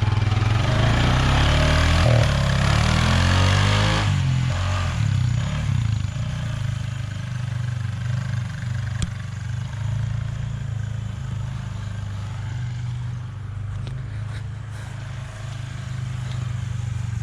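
Honda Pioneer 500 side-by-side's single-cylinder engine pulling hard with its revs rising and falling for about four seconds, then running steadier and quieter at lower revs as the machine drives on.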